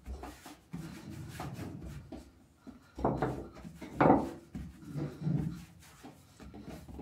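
Hands handling and pressing sweet rosca dough as small figurines are tucked into it, with irregular rubbing and handling sounds, loudest about four seconds in.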